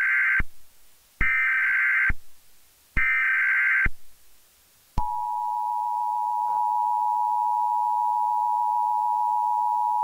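Emergency Alert System SAME header: three bursts of shrill digital data tones, each about a second long. About five seconds in, the steady two-tone EAS attention signal begins and holds.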